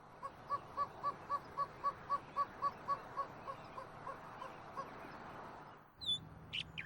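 Greater roadrunner calling: a fast series of about seventeen short, even coo-like notes, about four a second, fading toward the end.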